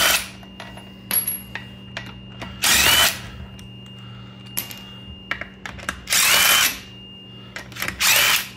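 Cordless impact tool spinning out the lug bolts on a Mercedes wheel: about three short bursts of the motor winding up and hammering, each about half a second, spaced a few seconds apart.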